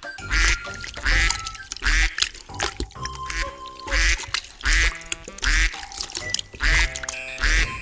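Duck quacking repeatedly over background music with a steady thumping beat.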